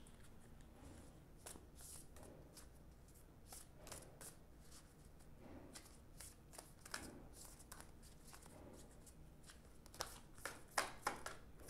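A deck of oracle cards shuffled by hand: soft, scattered card clicks and rustles, growing quicker and louder in the last second or two.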